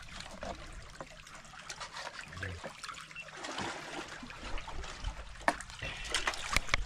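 Seawater trickling and lapping among shoreline rocks. A few sharp clicks, mostly in the last second and a half, are a knife striking a plastic cutting board as fish is cut.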